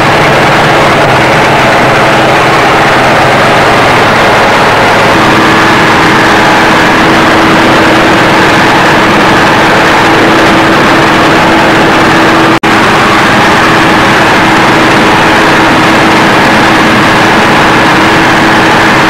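Combine harvester running steadily at work while harvesting grain: a loud engine and threshing machinery, with a steady hum joining about five seconds in.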